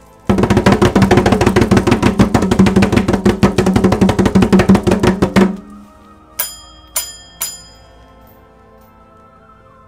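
A fast drum roll of rapid, evenly packed strokes lasting about five seconds, ending in three sharp ringing strikes about half a second apart.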